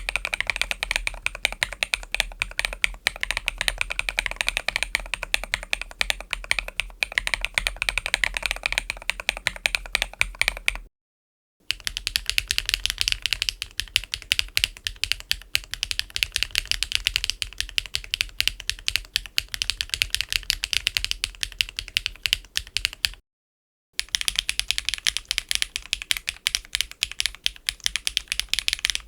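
Fast typing on a mechanical keyboard fitted with Keygeek Cheese V2 linear switches: a dense stream of keystroke clacks in three separate runs, each cut off by a brief silence, about eleven and twenty-three seconds in.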